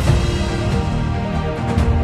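Background music with a steady beat and sustained tones over a strong bass.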